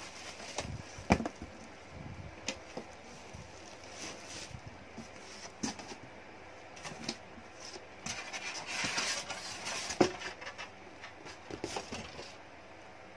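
Cardboard box and plastic wrapping being handled while an air fryer is lifted out: scattered knocks and scrapes, a sharp knock about a second in and another near ten seconds, with a longer plastic and cardboard rustle just before the second knock.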